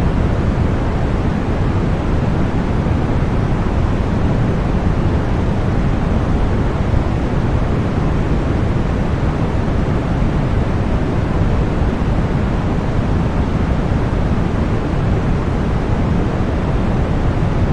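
Continuous deep white noise: an even, unbroken hiss with most of its weight in the low end.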